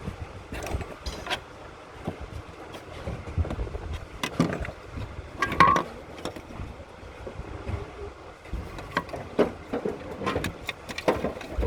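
Scattered knocks and clicks over a steady low rumble, with one louder clank about halfway through.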